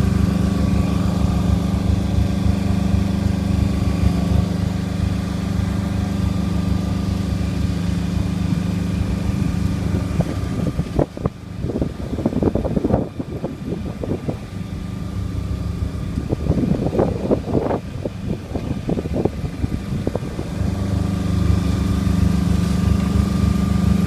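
A Trapper 501 yacht's inboard engine running steadily at one constant speed, a low hum with a steady pitch. About ten seconds in it is overlaid by rough, gusty rushing noise for about ten seconds, then comes back clear.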